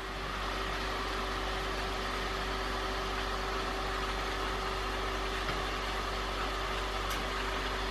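Steady machine hum with a constant mid-pitched tone, from an appliance running in a small utility closet.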